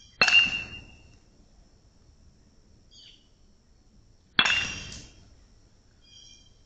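StringKing Metal 2 BBCOR metal baseball bat hitting a ball twice, about four seconds apart: each hit a sharp metallic ping with a short ring that fades within about half a second.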